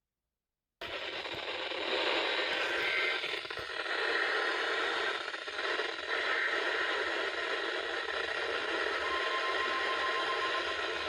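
Weather radio static: a steady hiss that starts abruptly less than a second in and continues without a voice. A faint steady tone comes through the hiss near the end.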